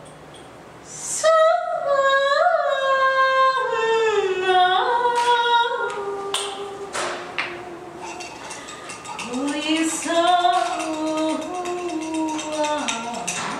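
A woman's voice singing wordless, long held notes that step down in pitch, starting about a second in, with a second long sung phrase beginning about nine seconds in. A few short clicks are heard between the phrases.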